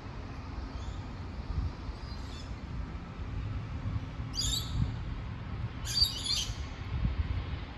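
A bird gives two short, loud calls about four and six seconds in, with a few fainter calls earlier, over the steady low rumble of a freight train.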